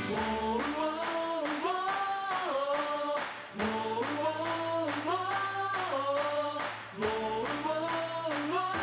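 Football cheer song: several voices singing a chant-like phrase together in harmony over a steady beat, the phrase repeated three times with a short break before each repeat.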